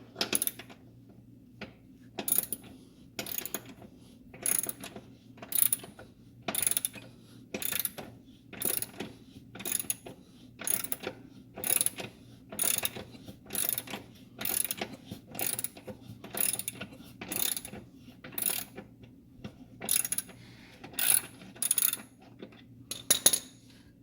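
Hand ratchet with a 15 mm socket turning the bolt of a Dodge Dart's lower engine mount: short ratcheting bursts about once a second, some two dozen strokes, stopping just before the end.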